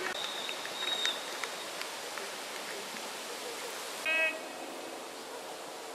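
Steady outdoor noise on a football pitch. A single whistle blast of about a second, typical of a referee's whistle, comes at the start. A short shout from a player comes about four seconds in and is the loudest moment.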